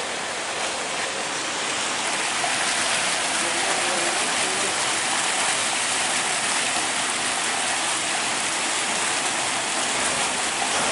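Rushing river water: a steady, even hiss of turbulent flow that grows a little louder about two seconds in.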